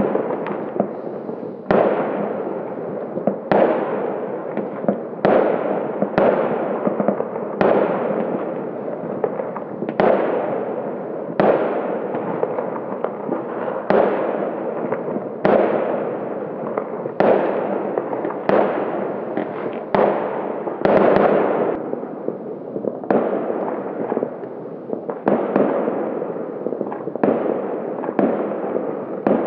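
Fireworks and firecrackers going off nonstop, a sharp bang every second or two, each ringing out briefly over a constant dense crackle.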